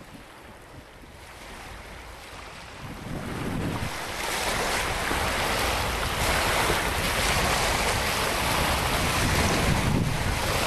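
Water rushing and splashing past a moving boat, with wind buffeting the microphone. It fades up over the first four seconds, then holds steady.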